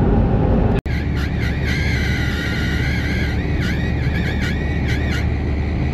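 Cab of a 1985 Toyota pickup at highway speed, with a steady engine and road drone. Starting about a second in, a wavering high-pitched squeak runs over it for about four seconds, breaking off briefly a few times.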